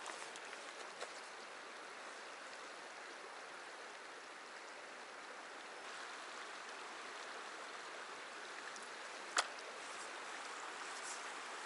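Shallow river running over stones, a steady rush of water. A single sharp click cuts through about nine seconds in.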